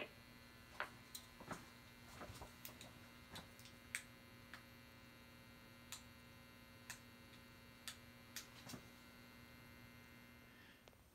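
Near silence: a faint, steady electrical mains hum with scattered faint clicks.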